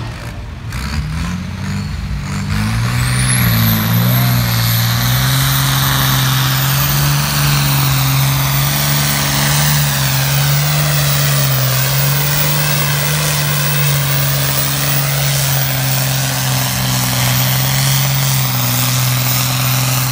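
Vintage Fordson Major tractor's diesel engine running flat out under heavy load while dragging a tractor-pulling sled. It is a deep, steady engine note that climbs and grows louder over the first few seconds, then holds.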